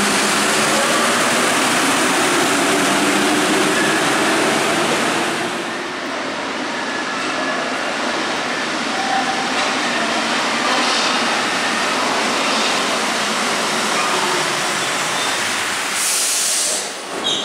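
Paris Metro trains running through stations: a loud, steady train noise for the first six seconds, then after a cut a quieter stretch of a train moving along the platform. A short hiss comes near the end.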